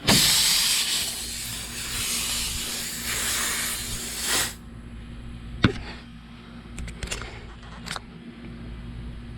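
Pressurised air hissing out of a punctured truck tire through the puncture hole, starting suddenly and cutting off after about four and a half seconds. A few sharp clicks follow.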